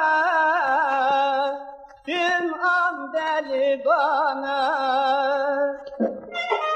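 Male folk singer holding long, ornamented notes with vibrato in a Harput türkü, with a brief break about two seconds in. Near the end an instrumental interlude takes over.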